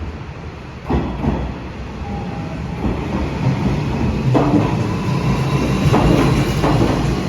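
Electric commuter train running along the platform track, its wheels knocking over rail joints every second or so. The rumble grows steadily louder from about a second in, and faint steady whining tones sit above it.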